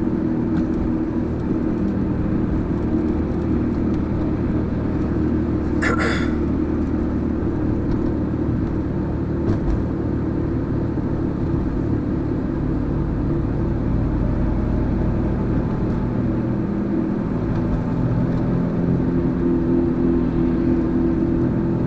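Car cabin sound while driving: a steady low rumble of engine and road noise. A short sharp sound comes about six seconds in.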